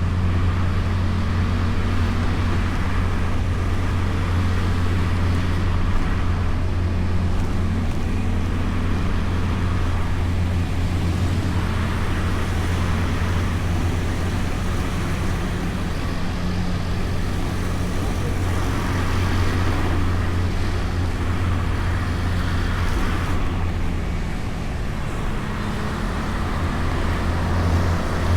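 Honda Beat scooter's small single-cylinder engine running steadily while riding, with tyre, wind and surrounding traffic noise. Near the end the engine note eases off, then picks up again.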